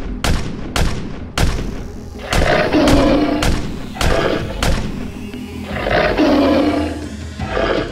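Pistol shot sound effects, several in quick succession, mixed with tiger roars, one long roar about two and a half seconds in and another about six seconds in, over background music.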